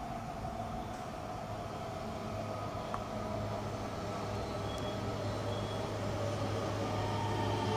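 Coupled E3-series and E2-series Shinkansen trains approaching, their GTO-thyristor VVVF inverters whining in several steady tones over a low hum and running noise. It grows louder toward the end as the train comes closer, with a new higher tone near the end.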